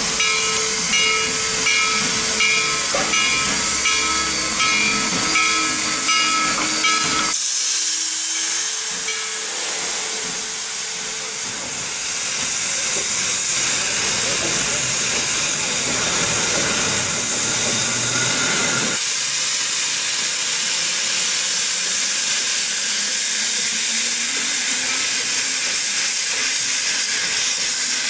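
Western Maryland Scenic Railroad 734, a 2-8-0 steam locomotive, hissing steam as it stands on a turntable. A steady multi-pitched tone sounds over the hiss and cuts off suddenly about seven seconds in. From about twelve seconds the hiss grows fuller and louder as the engine vents heavier steam.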